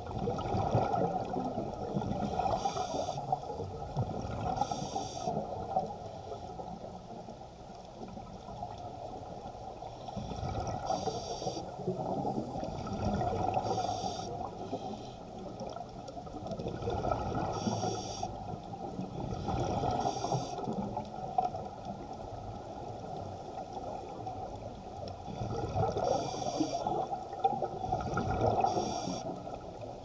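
Underwater sound of scuba breathing through a regulator: a short hiss on each inhalation every few seconds, and a low rush of exhaust bubbles swelling and fading between them.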